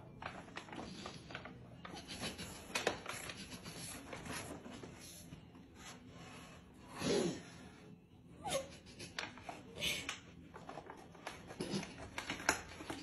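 Plastic cat-food bag crinkling and scraping as a cat drags it across a tile floor in its mouth, in irregular rustles and crackles. A louder, lower sound falls in pitch about seven seconds in.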